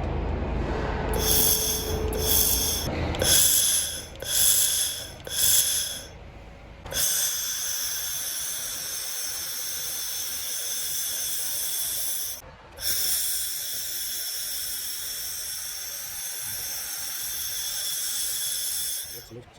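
Handheld fiber laser welder working on stainless steel tube: a hiss with steady high whining tones. It comes first in about five short bursts of roughly a second each, then as a long continuous run broken once briefly about twelve seconds in. A low rumble sits under the first few seconds.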